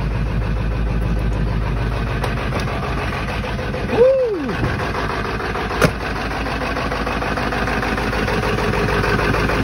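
Ford 7.3 L Power Stroke turbodiesel V8 idling steadily on a cold start, cold after sitting for three weeks. A short rising-and-falling squeak comes about four seconds in and a sharp knock a couple of seconds later.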